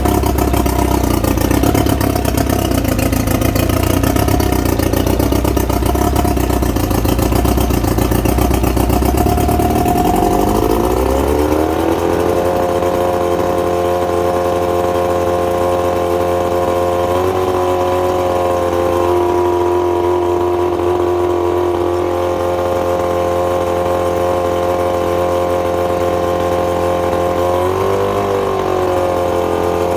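1996 Mariner Magnum 40 hp four-cylinder two-stroke outboard motor running. It runs fast and rough for about ten seconds, then the revs drop to a steady idle, with two brief rises in speed.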